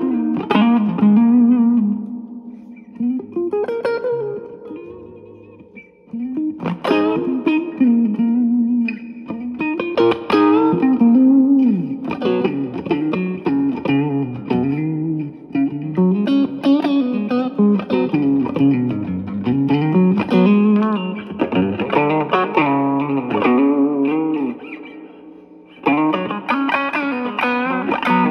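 Single-coil Stratocaster played through a Yamaha THR10C modeling amp on its MINI amp model. Melodic lead phrases with bent notes; twice the notes ring out and fade before the playing picks up again.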